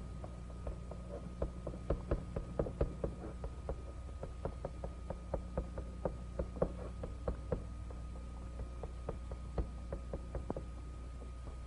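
Old film soundtrack noise: irregular faint clicks and pops, a few a second and thinning out near the end, over a steady low hum.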